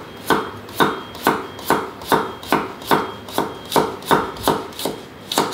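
Kitchen knife chopping a carrot on a cutting board, in a steady run of evenly spaced strokes, about two and a half a second.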